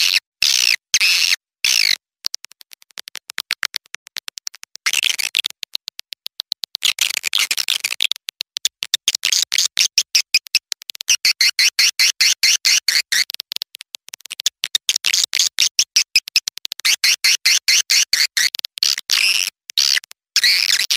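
Recorded calls of young swiftlets: dense, rapid high-pitched chittering in runs broken by brief silences, softer for a few seconds near the start. This is the swiftlet call (lure) sound played to draw swiftlets into a nesting house.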